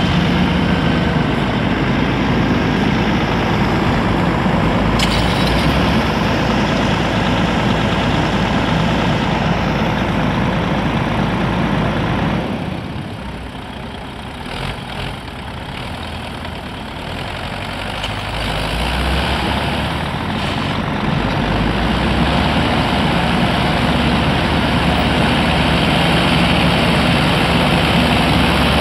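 Heavy diesel engines of a tractor and truck running, working to tow the truck out of snow. The engine noise drops back for a few seconds about halfway through, then builds up again.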